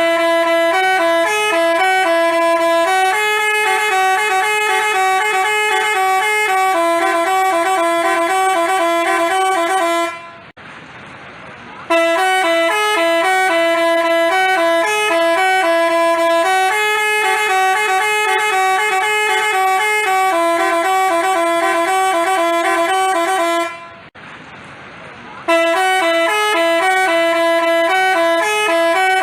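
Basuri telolet multi-tone bus horn playing a repeating tune of held, stepping notes, with two brief breaks about ten and twenty-four seconds in.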